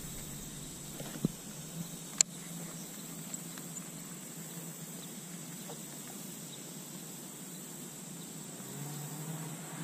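Quiet outdoor background: a steady low hum, with a couple of short sharp clicks about one and two seconds in.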